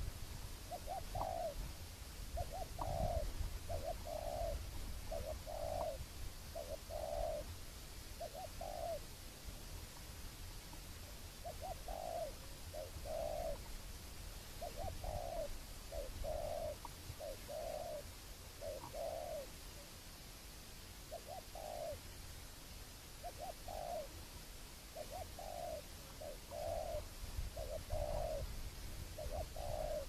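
Spotted dove cooing: short low coos in repeated phrases of two or three, with brief pauses between phrases.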